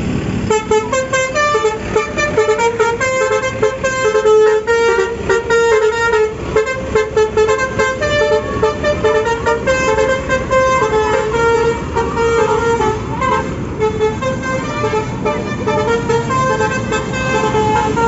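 Tour bus telolet horn, a set of musical air horns, playing a fast melody of short stepped notes. It starts about half a second in and runs almost to the end.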